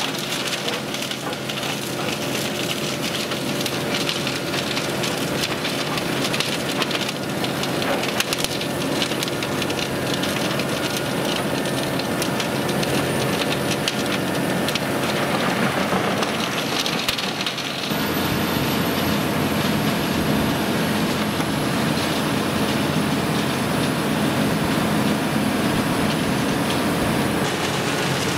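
Eschlböck Biber 92 mobile wood chipper, driven by a Claas Xerion 4000 tractor, running steadily and chipping wood, with dense crackling over the machine's drone. The sound changes abruptly about two-thirds of the way through and becomes fuller and lower.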